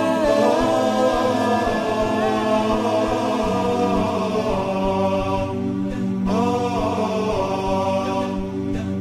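Vocal chanting in long held, slowly bending notes over a steady low drone, with brief pauses about six seconds in and near the end.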